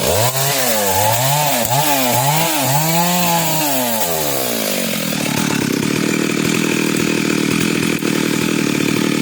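Two-stroke chainsaw revving up and falling back about five times in quick swells, then running steadily from about halfway through.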